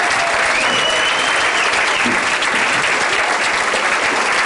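Comedy club audience applauding steadily, with a single high whistle about half a second in.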